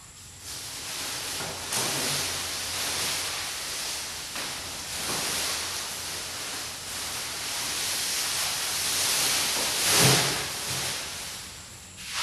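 Dry corn stalks and leaves rustling and crackling as they are handled, swelling loudest about ten seconds in.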